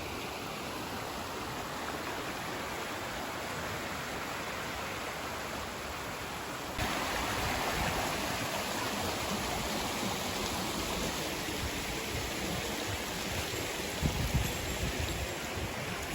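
Water rushing down a stream channel, a steady noisy rush that turns suddenly louder about seven seconds in. A few low thumps come near the end.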